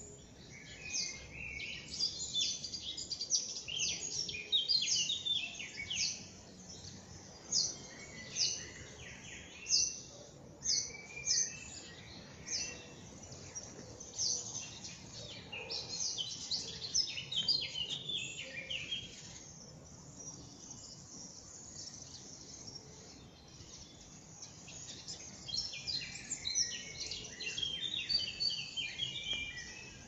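Several small songbirds singing in a morning chorus: quick, high chirps and trills overlapping, with a lull of a few seconds past the middle before they pick up again.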